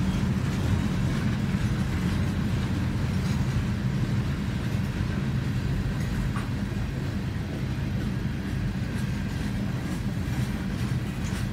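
Freight train cars rolling past a grade crossing, a steady low rumble heard from inside a stopped car.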